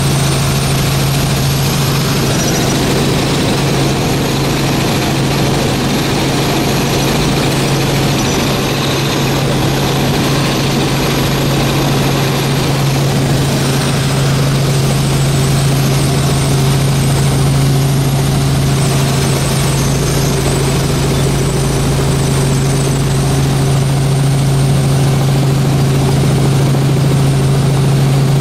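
Light helicopter in cruising flight, heard from inside the cabin: a loud, steady drone of engine and rotor with a strong constant hum.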